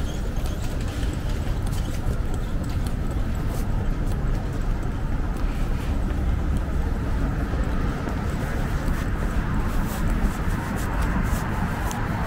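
Busy city street ambience: a steady low rumble of traffic and crowd noise, with scattered light clicks.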